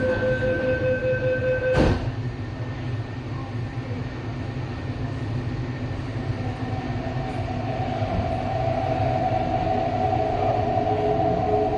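Inside an MTR East Rail line train: a steady door-closing warning tone ends as the doors shut with a sharp thud about two seconds in. Then comes the low rumble of the train, and about halfway through an electric motor whine sets in as the train pulls away.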